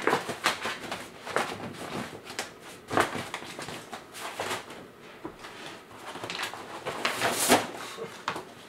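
Fabric rustling and scraping from a Savage light tent's silver-lined cover and white backdrop sheet, handled and pulled into place around the tent's frame. The sounds come in irregular brushes and scuffs, the sharpest about three seconds in and again past seven seconds.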